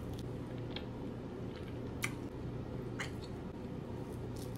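Chewing mouth sounds: a few short wet clicks over a steady low hum.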